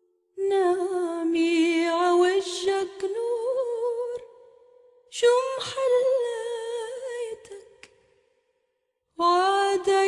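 A solo voice singing long wordless held notes with vibrato, in three phrases with short pauses between them and little or no accompaniment.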